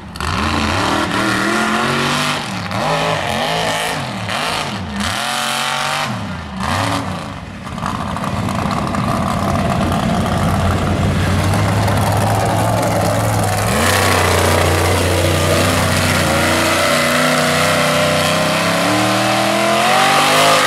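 Mega truck's engine revving hard, the pitch swinging up and down with repeated throttle blips. It is then held at high revs for long stretches, dropping briefly about two-thirds of the way through before climbing again.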